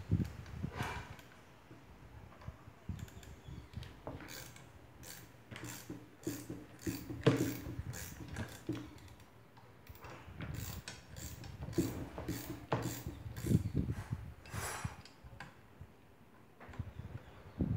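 Ratcheting wrench clicking in short irregular runs with pauses, as the top center nut of a strut is worked loose while its coil spring is held in a spring compressor.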